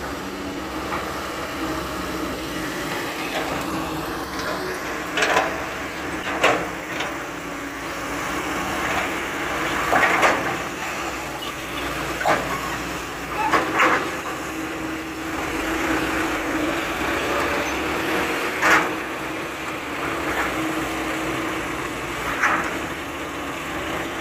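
Hydraulic excavator's diesel engine running steadily under load while it digs earth and loads a dump truck. About eight sharp knocks from the working bucket and arm break through the drone every few seconds.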